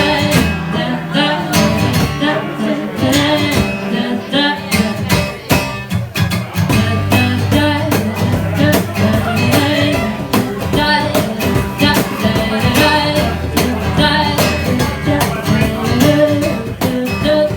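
Live band music: guitar over a steady bass line and drum beat, with some singing.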